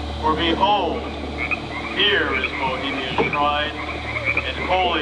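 A man's amplified voice reciting ceremonial lines in a slow, drawn-out, sing-song intonation, with long pitch glides and pauses between phrases. A steady low hum lies underneath.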